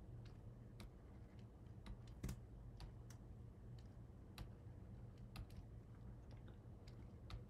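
Faint, irregular clicks of computer input devices being worked, one louder about two seconds in, over a faint steady low hum.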